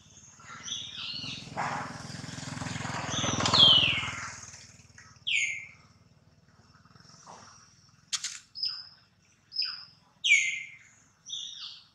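Birds calling: a series of short, sharp chirps, each sliding downward, from about five seconds in. Before them a rush of noise with a low hum swells, peaks and fades away.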